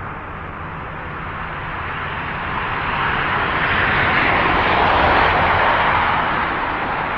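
Distant passing engine noise: a rushing sound that swells over a few seconds to a peak about five seconds in, then fades.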